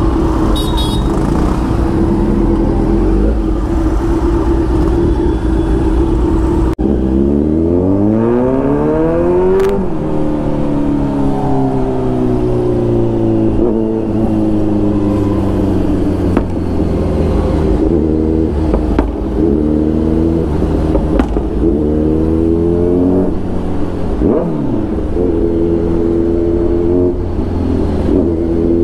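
Kawasaki Z900's inline-four engine idling, then about seven seconds in pulling away and accelerating up through the gears. The revs climb and drop at each shift, then rise and fall with the throttle as the bike rides on.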